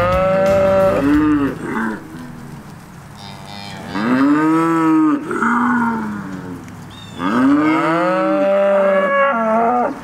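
Pineywoods cattle mooing repeatedly: long moos at the start, about four seconds in and about seven seconds in, each rising and then falling in pitch, with shorter lows between them.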